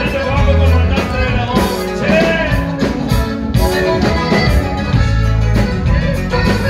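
Live norteño band music, an upbeat song with a steady beat and strong bass, with singing.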